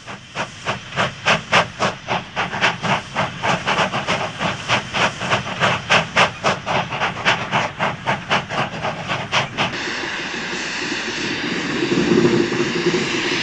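Austerity 0-6-0 saddle-tank steam locomotive working under steam, its exhaust beating evenly at about three to four chuffs a second. About ten seconds in the beats stop and a steady hiss of steam carries on.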